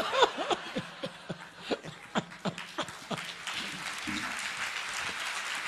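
Audience laughing in short bursts, then breaking into steady applause about three and a half seconds in.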